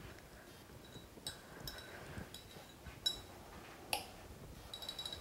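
Small glass bowl clinking faintly while grated cheese is shaken out of it: about half a dozen light ticks, each with a brief glassy ring.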